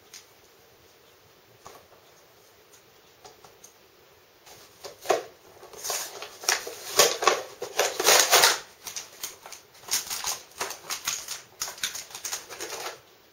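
Plastic packaging crinkling and crackling in the hands as a toy package is opened, starting about four and a half seconds in and going on in irregular handfuls until near the end; a few faint clicks come before it.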